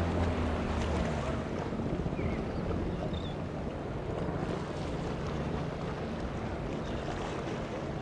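Boat engines running at low speed, a steady low hum that dips slightly in pitch in the first second or so, with wind on the microphone and water noise.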